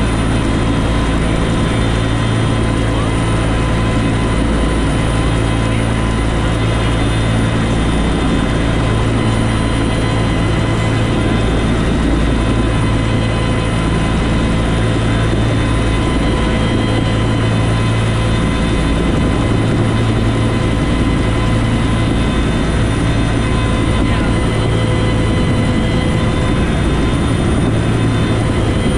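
Bell UH-1 Huey helicopter heard from inside the cockpit in low flight coming in to land: a steady turbine whine over the low throb of the main rotor, which swells and fades every few seconds.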